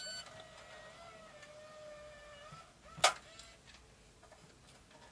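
8mm camcorder ejecting its tape: a brief beep at the start, a faint motor whine from the tape mechanism for about two seconds, then a sharp click about three seconds in as the cassette compartment pops open.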